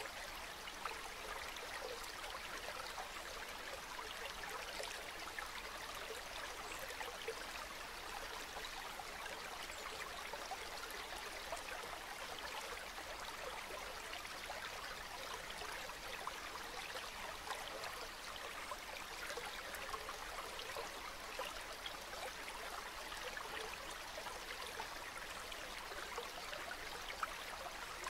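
Calm river water flowing steadily, a continuous gentle stream sound with fine trickling detail.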